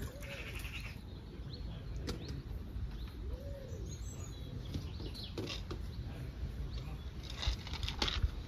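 Wind rumbling on the microphone, with a couple of soft rising-and-falling calls and scattered rustles and clicks that grow busier near the end.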